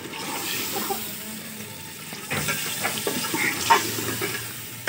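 Chicken pieces sizzling in masala in a metal cooking pot while a steel ladle stirs them. The ladle scrapes and knocks against the pot a few times in the second half.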